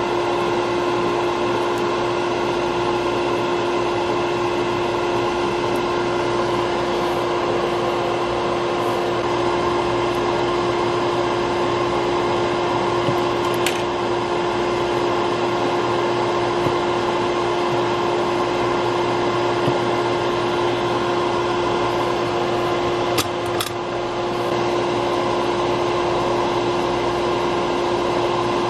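Small electric fan or blower running steadily, a continuous hum with one clear steady tone; a few faint clicks sound about halfway through and again near three-quarters of the way.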